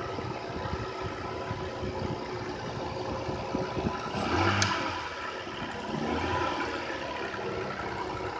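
Toyota 2JZ-GE VVT-i straight-six running cold, revved up twice, about four and six seconds in, and let drop back to idle. It knocks when the throttle is released, the fault this engine is shown for.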